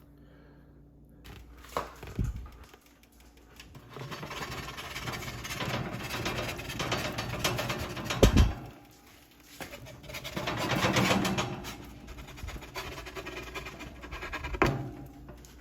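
Kitchen handling sounds: stretches of rustling and scraping with a few knocks, the loudest about eight seconds in.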